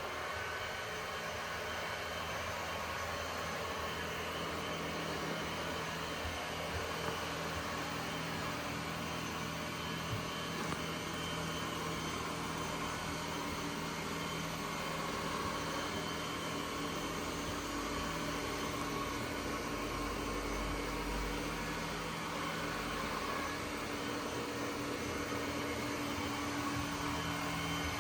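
ECOVACS DEEBOT N8 PRO+ robot vacuum running: a steady motor and fan whir with a constant hum, and a couple of faint knocks along the way.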